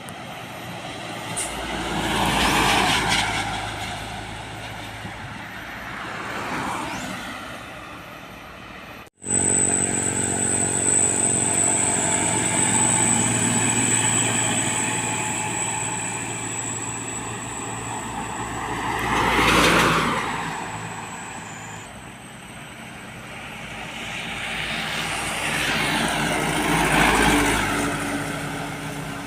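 Trucks passing on a road one after another, each swelling and fading away. After a sudden break about nine seconds in, a truck engine runs steadily nearby while more vehicles pass.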